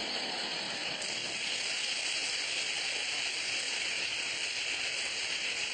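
Studio audience applauding, a steady clatter of many hands with no break.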